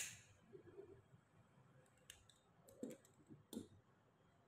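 A disposable lighter clicked alight once at the start, its sharp strike trailing off quickly, then a few faint clicks and taps of small tools being set down and picked up on a work table.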